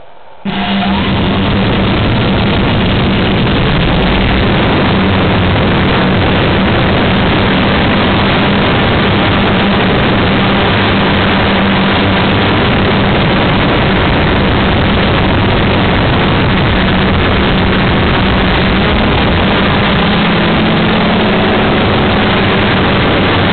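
Quadcopter drone's four electric motors and propellers starting up suddenly about half a second in and then running steadily as it lifts off, heard loud from the drone's own onboard camera: a steady hum under a rushing noise.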